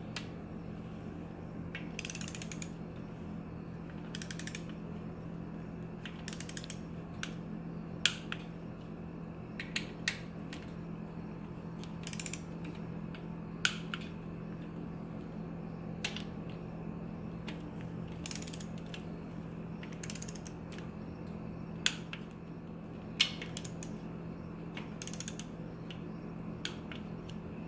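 Click-type torque wrench ratcheting in short runs with sharp clicks every couple of seconds as bearing-cap bolts on a Honda B18B1 engine block are tightened to their first torque spec of about 22 ft-lb. A steady low hum sits underneath.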